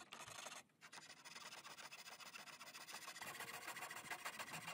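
Faint rasp of a coping saw cutting a coped end into a piece of white baseboard, in quick, even strokes with a brief pause a little under a second in.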